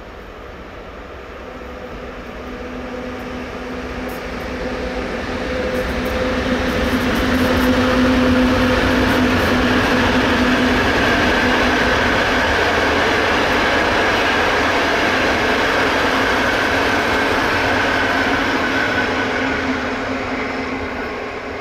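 Electric-hauled passenger train, a PKP EU07 locomotive with a rake of coaches, passing by on the main line. The steady rolling noise, with a faint hum, swells as the train approaches, holds through the middle and fades away near the end.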